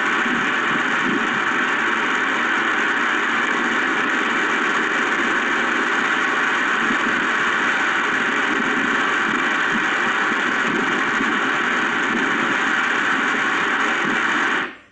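Heavy wind and rain as recorded by a security camera's microphone: a loud, steady, even rushing noise that cuts off suddenly near the end.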